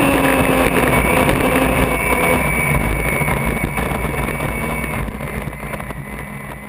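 Unlimited hydroplane's turbine engine running, heard from the cockpit as a steady whine over a heavy rush of wind and water. The sound fades gradually over the last couple of seconds.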